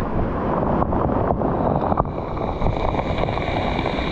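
Storm-force wind buffeting the microphone in a steady, heavy rush, with a faint high whistle joining about two seconds in.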